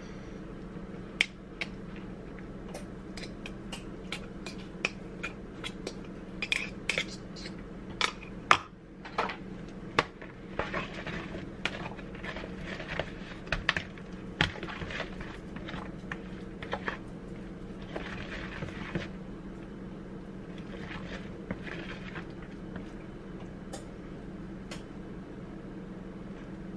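Can and utensils clicking and knocking against a plastic mixing bowl as shredded canned chicken is scraped out into cooked pasta and stirred in with a spoon. The knocks come thick in the first half and give way to softer scraping and stirring, over a steady low hum.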